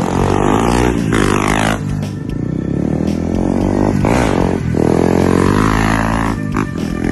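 Honda CRF250L's 249cc single-cylinder four-stroke engine revving hard as the bike accelerates. The pitch climbs and then drops back several times as it shifts up through the gears.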